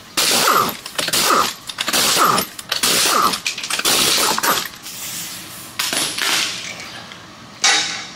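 Pneumatic impact gun hammering on wheel lug nuts to loosen them: five short bursts in quick succession, each dropping in pitch as the trigger is released, then two more brief bursts later.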